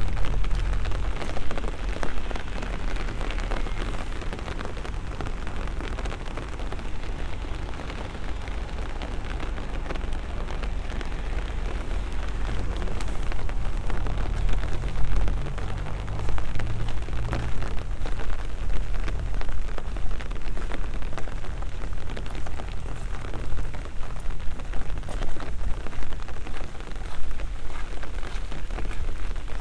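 Steady rain, with many close drops ticking and a low rumble underneath.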